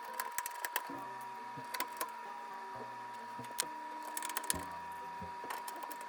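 Irregular light clicks and taps from PC components being handled and fitted, over a steady faint high whine.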